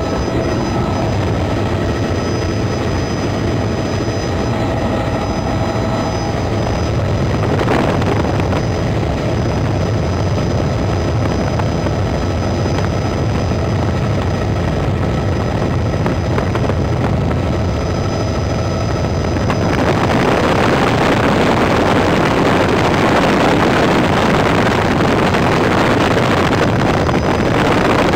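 Helicopter engine and rotor noise heard from inside the cabin: a steady, loud drone with a thin high whine. A little over two thirds of the way through it turns into a louder, rougher rush.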